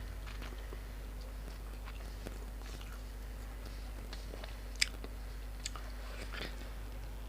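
A person chewing and biting grilled pork nam tok salad with sticky rice close to the microphone, with scattered small clicks and crunches and one sharp click about two-thirds of the way through, over a steady low hum.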